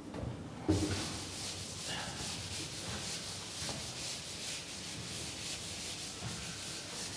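A felt chalkboard duster scrubbing chalk off a blackboard in repeated back-and-forth strokes. It starts with a knock under a second in.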